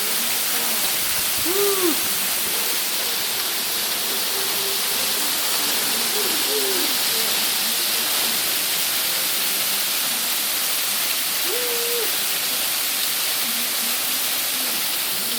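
Waterfall rushing steadily. Three faint short calls that rise and fall in pitch cut through it about two, six and twelve seconds in.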